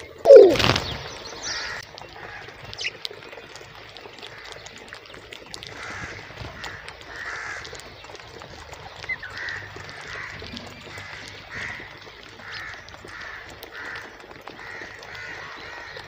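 Rose-ringed parakeets calling: one loud harsh call falling in pitch about half a second in, then a run of softer repeated calls through the second half.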